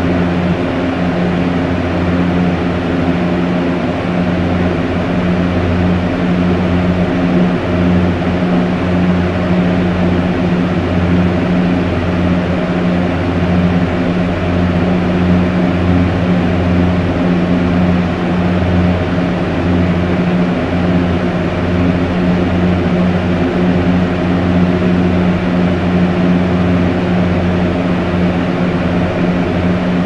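Electric fan running steadily: an even rush of air over a low motor hum.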